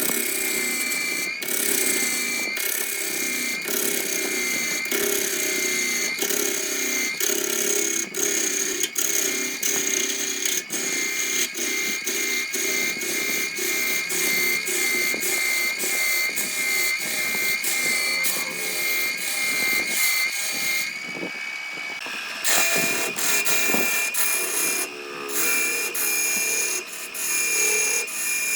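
Wood lathe running with a turning tool cutting into the spinning wood: a steady high whine with a rapid scraping rattle, breaking off briefly about three-quarters of the way through.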